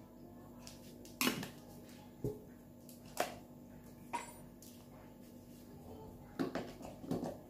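Short, sharp clicks and knocks about a second apart, with a few close together near the end. They come from a metal tin of cotton pads being handled and closed, and from the pump top of a nail polish remover dispenser being worked with a cotton pad.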